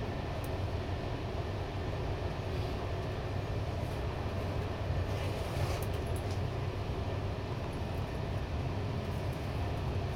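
Steady running noise of a train hauled by a BR 218 diesel-hydraulic locomotive at speed, heard while riding along: a continuous low rumble of wheels on rail with the locomotive's diesel drone underneath, and a few faint ticks about halfway through.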